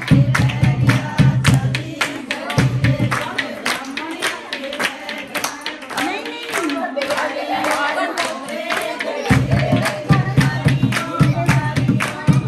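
Women singing Punjabi wedding folk songs together to a dholak drum and rhythmic handclaps. The dholak's deep thumps drop out after about three seconds and come back near the end, while the clapping and singing carry on.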